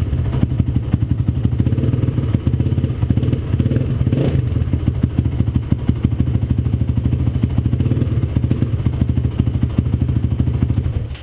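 Honda TRX450R's single-cylinder four-stroke engine idling with a fast, even pulse, with a short rev blip about four seconds in. The engine sound cuts off suddenly near the end.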